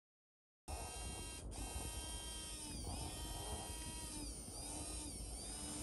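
Electric motor and gear drive of a radio-controlled scale crawler whining steadily, starting just under a second in, its pitch dipping briefly a few times as the truck crawls over ramps.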